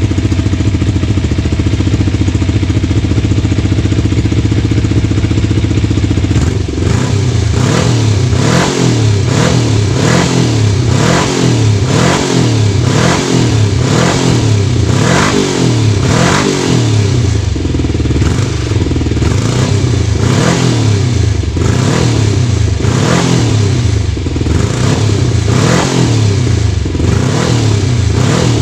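Kawasaki Ninja 250 first-generation parallel-twin four-stroke engine idling steadily. About six seconds in, the throttle starts being blipped over and over, about once a second, each rev rising and falling back. The revving stops near the end and the engine returns to idle.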